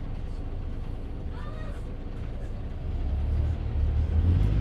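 Inside a Volvo 8900LE city bus on the move: the engine runs under a steady low rumble of road noise, and the engine sound swells clearly louder about three seconds in as it takes up load.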